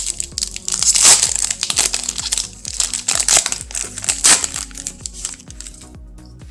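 Foil wrapper of a baseball card pack crinkling and being torn open, in several loud rustling bursts that die away about six seconds in.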